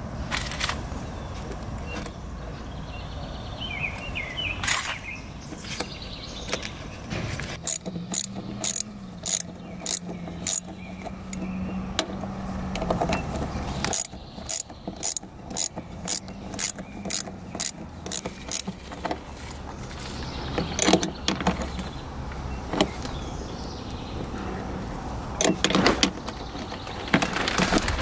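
Small hand ratchet clicking in short, quick runs with pauses between them as a bolt is tightened.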